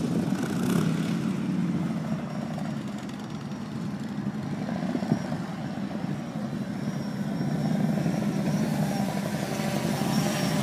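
Quadcopter drone's propellers humming steadily, with a thin high motor whine over the hum; it gets a little louder in the last few seconds.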